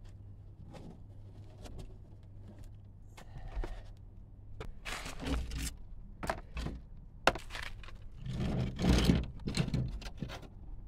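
Gloved hands rummaging under a lifted roof membrane in the eaves, pulling out old debris and fixings: irregular scraping, rustling and a few sharp clicks and knocks, loudest in the last few seconds.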